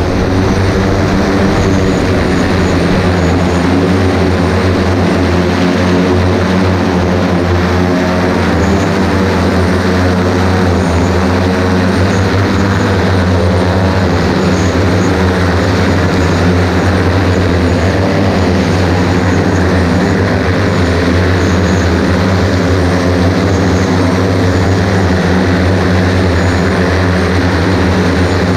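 EMAV single-seat electric multirotor eVTOL's motors and propellers running steadily at flight power: a loud, even drone with a strong low hum.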